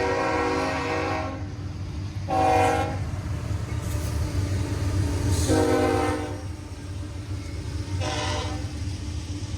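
A CSX locomotive's GEVO horn sounding a chord. A long blast cuts off about a second in, followed by three shorter blasts a few seconds apart, all over a steady low rumble.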